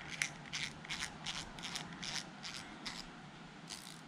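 Spinning reel's front drag (clutch) knob being screwed back on by hand: a run of short scratchy clicks, about three a second.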